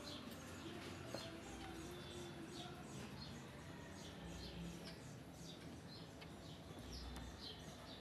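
A bird chirping over and over, faint: short high falling chirps about three times a second.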